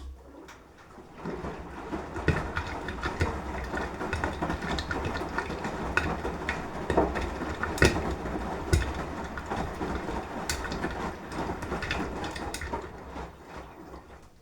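Beko washing machine drum turning during a 30° wash cycle, the motor humming while wet laundry and water slosh and knock inside the drum. It starts suddenly and fades out after about fourteen seconds.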